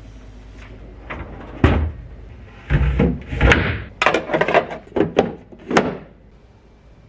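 A series of knocks and clunks: a refrigerator's drawers, shelves and containers being handled and shut during fridge cleaning. There is one sharp knock, then a busy run of clunks that stops near the end.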